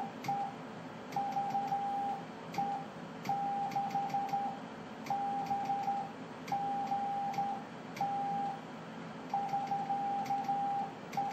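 Morse code sent by hand on a telegraph key: a single steady mid-pitched tone, the transmitter's CW sidetone, keyed on and off in dots and dashes in irregular groups, with faint clicks from the key.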